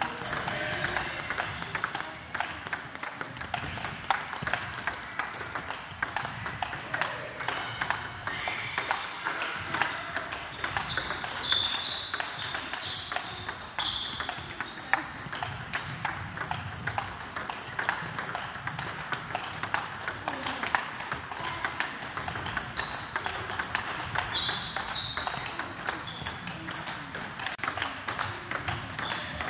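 Table tennis rally: a fast, continuous run of light clicks as plastic balls are hit with paddles and bounce on the tabletops, mixed with the rallies at other tables in the hall. A few short high squeaks are heard about midway and again later.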